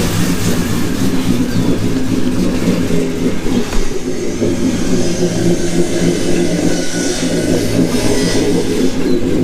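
LS-swapped V8 engine running at a steady idle after a start following a long sit on fresh spark plugs, not yet tuned.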